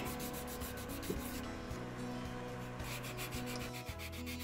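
Steel hand scraper drawn in repeated short strokes along the edge of a guitar body, scraping newly glued binding flush with the sides.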